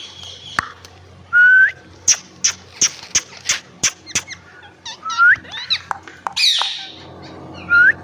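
Albino Indian ringneck parakeet calling: three loud, short screeches that sweep upward in pitch, with a quick run of sharp clicks between the first two and a harsh squawk shortly before the last.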